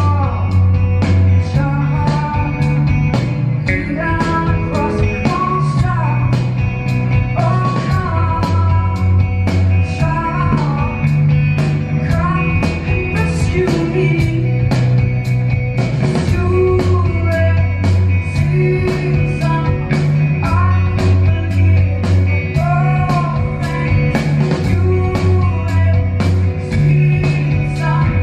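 Live band playing a song: a woman sings over electric guitar and a steady drumbeat, recorded from the audience.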